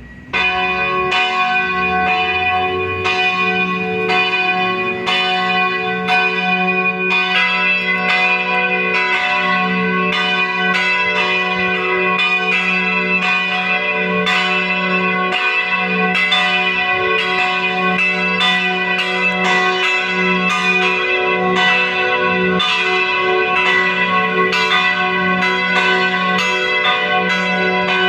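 Two church bells ringing together, their strokes coming close and overlapping, each tone ringing on between strikes.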